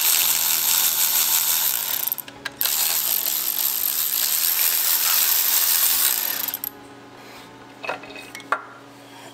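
Air tool running in two long bursts, about two and four seconds, with a loud hiss of exhaust air over a steady motor tone; then it stops, and two light clicks follow near the end.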